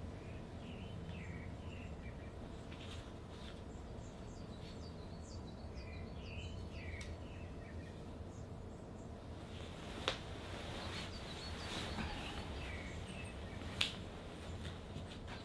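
Small birds chirping and twittering in short phrases over a steady low hum, with two sharp clicks about ten and fourteen seconds in.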